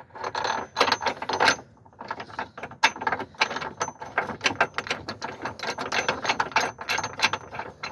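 Rapid metallic clicking and scraping while a bolt is fitted and turned into a new body mount (body dampener) on a 1995 Buick Regal's frame. It goes in quick runs of clicks, with a short pause about one and a half seconds in.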